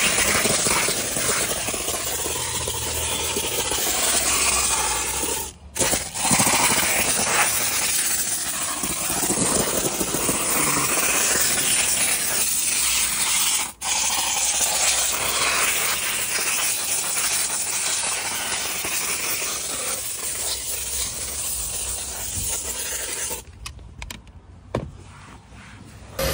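Handheld steam cleaner jetting steam onto a car dashboard and air vents: a steady, loud hiss that breaks off briefly about six and fourteen seconds in, and drops much quieter for the last few seconds.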